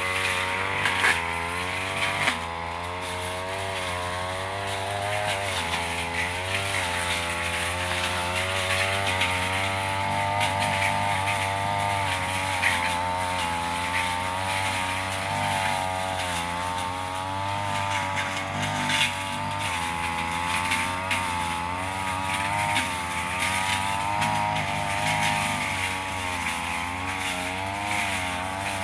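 Backpack brush cutter's small petrol engine running under load, its pitch wavering up and down as the blade cuts through undergrowth.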